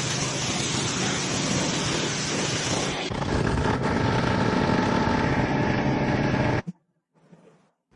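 1993 Ford 1520 compact tractor's diesel engine running steadily, getting louder about three seconds in, then cutting off suddenly near the end.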